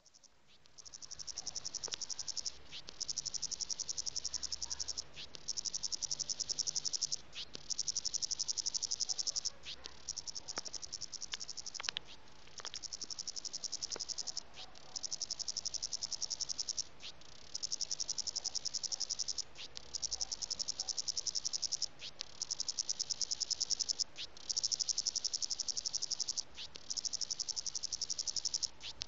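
A cicada's mating call: a high-pitched, rapidly pulsed buzz repeated in phrases about two and a half seconds long, each broken by a brief pause.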